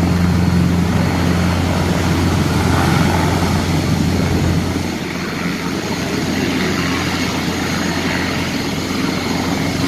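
Airbus EC725 Caracal twin-turboshaft helicopter hovering low, its main rotor giving a loud, steady low thrum over the hiss of the turbines. It eases slightly about halfway through, then builds again.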